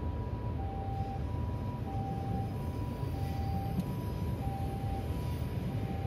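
Japanese railroad crossing warning signal ringing: an electronic alarm alternating steadily between a lower and a higher tone, each lasting about half a second, over a steady low rumble.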